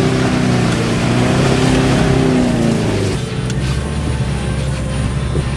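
Mitsubishi L200 Triton pickup's engine revving under load off-road, its pitch rising and falling. About three seconds in the sound changes abruptly to a steadier low running rumble.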